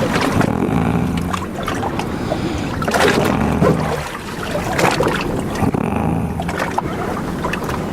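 A boat under way at sea: a steady low engine hum with water rushing and splashing in surges every few seconds.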